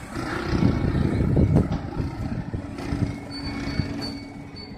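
Street traffic: a motor vehicle's engine running nearby, with low rumbling loudest in the first two seconds and a steady engine hum through the second half.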